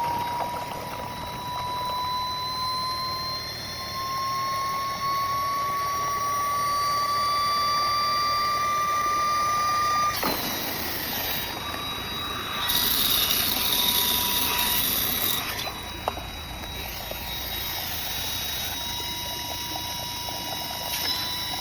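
Vacuum cleaner motor running with a high whine that rises slowly in pitch. About halfway through, the pitch drops suddenly and a loud hiss of rushing air comes and goes for a few seconds.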